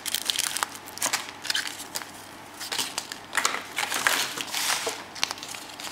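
Thin plastic wrappers crinkling and rustling in the hands as a candy packet and a wrapped picture card are handled, in irregular crackles.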